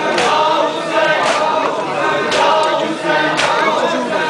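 A large group of men chanting a noha together, with a sharp slap about once a second: matam, mourners beating their chests in time with the chant.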